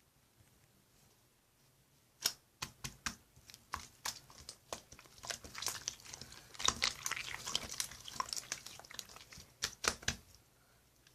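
Crinkling and tearing, a dense run of sharp crackles and clicks lasting about eight seconds, starting about two seconds in and stopping abruptly near the end.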